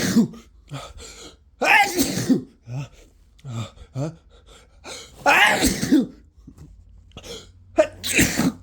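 A person with the flu sneezing several times in a row, about four loud sneezes a couple of seconds apart, with smaller short sounds between them.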